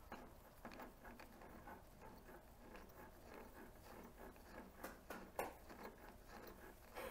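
Near silence: room tone with faint, scattered soft clicks and rubs from a small brass fitting being turned over in the hands.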